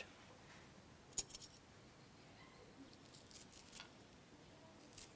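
Faint clicks and light scrapes of a small knife tip on a wooden cutting board while seeds are scraped out of a red chili. One sharper click comes about a second in, then a few faint ticks later on.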